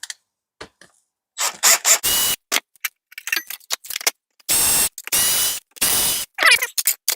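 Small cordless power driver backing screws out of a plastic Nerf blaster shell, run in a string of short whirring bursts with a steady whine, each burst about half a second long.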